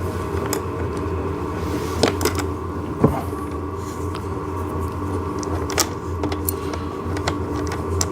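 Irregular metallic clicks and taps of wrenches on an 8 mm nut and washer being tightened onto a small axle, over a steady low mechanical hum.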